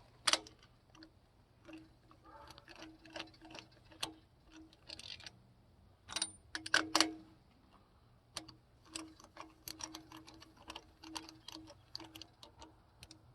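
Ratchet wrench clicking in short runs while spark plugs are snugged down in a Dodge LA-block V8, with scattered metal taps and clicks of tools and parts being handled; a louder handful of clicks comes about halfway through.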